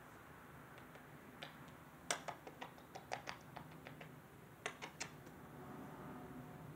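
A quick, irregular run of about a dozen short, sharp clicks and smacks from about a second and a half in to about five seconds in, the loudest near the start of the run and near its end, over faint room tone.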